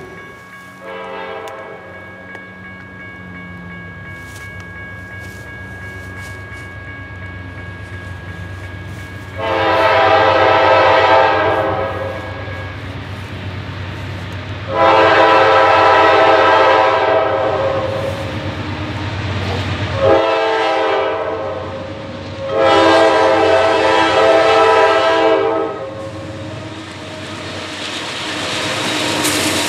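CSX GE Dash 8-40C locomotive's air horn sounding the grade-crossing signal as the train approaches: a faint distant blast, then two long blasts, one short and one long. A rumble from the locomotive and train swells near the end as it reaches and passes.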